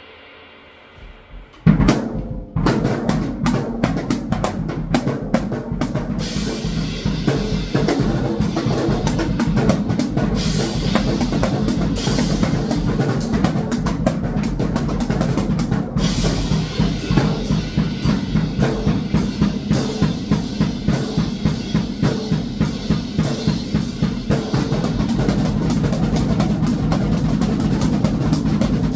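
Drum kit played hard: a loud hit about two seconds in, then fast, dense bass drum and snare strokes, with cymbals joining a few seconds later and continuing in a steady driving beat.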